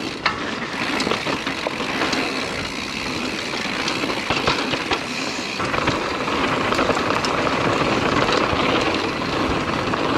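A mountain bike riding a rough track, heard from a GoPro whose microphones are muffled with pillow filling. Tyres roll over rough ground and the bike rattles, with scattered small knocks. There is basically no wind noise.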